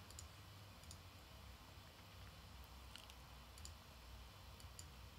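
Near silence with a few faint, scattered computer mouse clicks, about six over five seconds, over a low steady hum.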